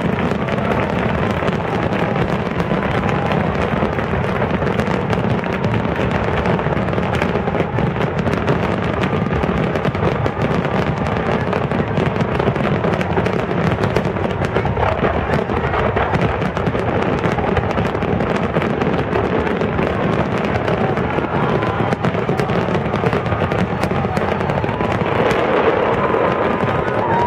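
Aerial fireworks display at full barrage: a dense, unbroken run of bangs and crackle from many shells bursting at once.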